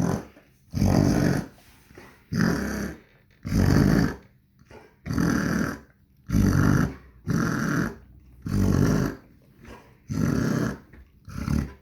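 Dog coughing in a steady run of harsh, noisy bursts, about one every second and a quarter, nine or ten in a row; the owner suspects kennel cough.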